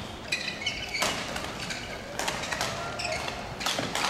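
Badminton rally: rackets striking the shuttlecock about five times, roughly once a second, with short high squeaks of shoes on the court between hits.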